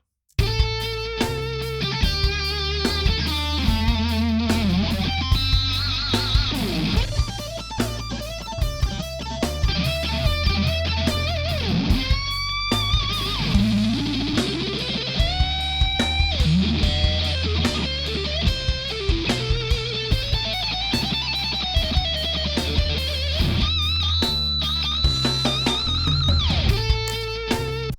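Rock backing track of drums and bass with a lead electric guitar solo played through the Brainworx bx_rockergain 100, a software emulation of Orange guitar amplifiers. The lead line has vibrato and several upward string bends.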